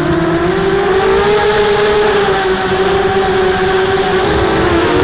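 Quadcopter drone's electric motors and propellers whining steadily in flight, the pitch drifting up and down a little with the throttle.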